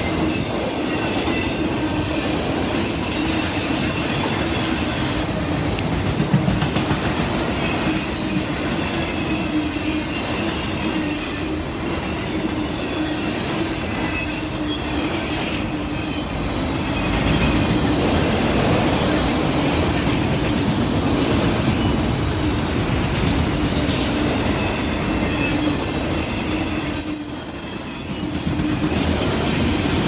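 Autorack freight cars rolling past: a steady, loud sound of steel wheels running on rail, with a faint high squeal from the wheels. The sound dips briefly near the end.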